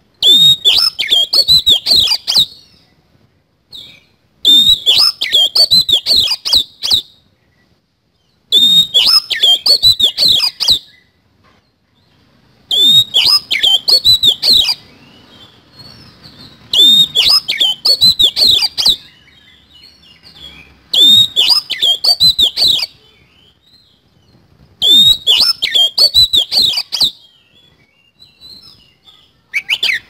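Oriental magpie-robin (kacer) singing a loud, rapid two-second phrase of harsh chattering and whistled filler notes, repeated seven times about every four seconds.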